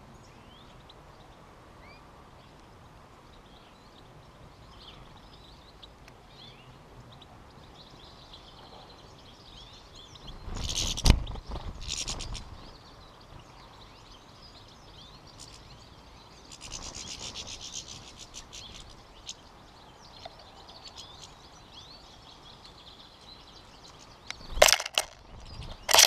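European goldfinches at a seed feeder twittering and chirping, faint and high, with a quick rapid twitter about two-thirds of the way in. A few loud close-up bursts of noise come about eleven seconds in and again near the end.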